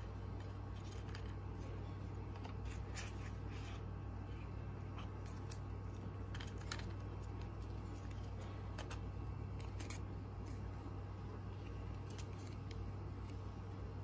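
Paper and thin card rustling and crinkling in short, irregular bursts as an iPhone's documentation pouch is opened and its card pulled out, over a steady low hum.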